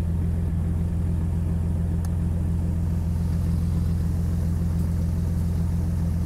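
Jeep Wrangler TJ engine idling steadily, with a loud exhaust and an even low hum.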